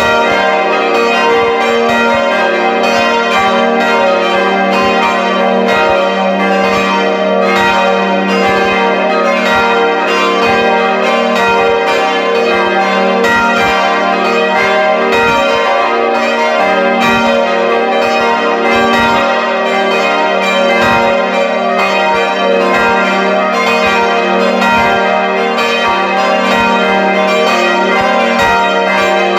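Full peal of five swinging church bells ringing together, heard close up from inside the belfry, with their strokes overlapping steadily. Four are 1962 Friedrich Wilhelm Schilling bells tuned g', b', c'' and d''; the fifth is a 1772 Mathias Stapf bell on e-flat''.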